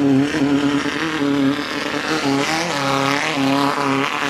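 Off-road race vehicle engine running loudly, its pitch rising and falling with the throttle.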